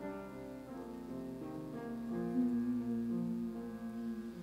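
Piano playing the soft instrumental introduction to a slow worship song: slow held chords that change every second or so.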